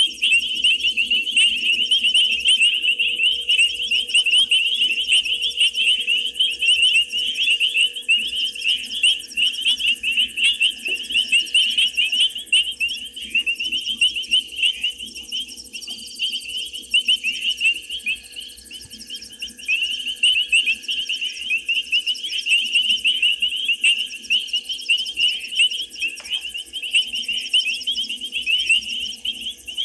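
Dense, unbroken night chorus of calling frogs and insects at a waterhole: rapid shrill chirps packed together at one high pitch, with fainter higher chirring over a faint steady hum.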